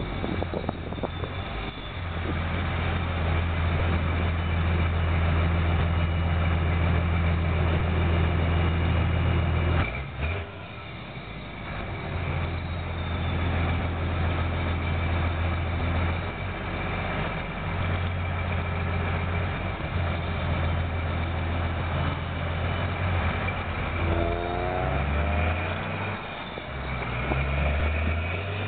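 1994 Dodge Ram 2500's 12-valve Cummins diesel heard from the truck bed while driving, its exhaust droning low through a homemade muffler on a 4-inch turbo-back system. The drone drops off sharply about ten seconds in, comes back in stretches, and rises in pitch near the end as the truck pulls away again.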